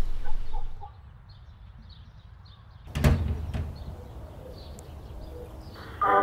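A door shutting with a single heavy thud about three seconds in, followed by a lighter click like its latch, with birds chirping faintly before it. Mallet-percussion music starts near the end.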